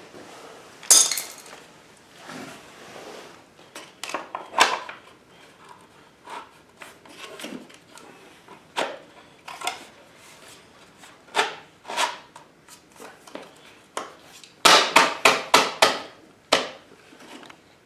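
Plastic swingarm protector being handled and knocked into place on a dirt bike's swingarm: scattered clicks, knocks and rubbing, with a quick run of about six strikes a little before the end.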